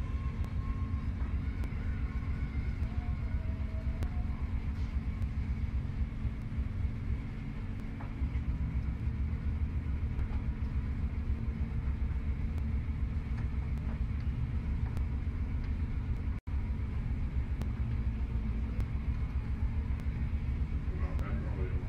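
A steady low rumble with a faint hum over it, cutting out for an instant about two-thirds of the way through.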